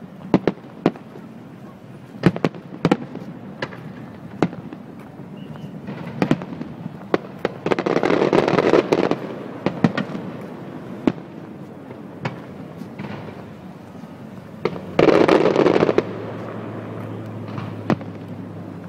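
Aerial fireworks going off: a string of sharp, separate bangs and pops, with two louder spells of rapid crackling, about eight seconds in and again about fifteen seconds in.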